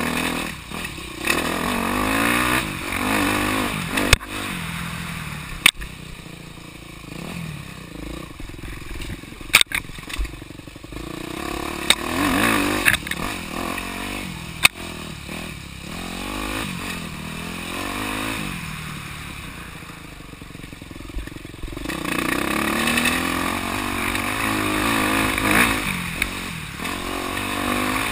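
Off-road dirt bike engine revving up and down over and over as the throttle is opened and closed along a twisting trail, with a few sharp knocks from the bike, and a louder run near the end.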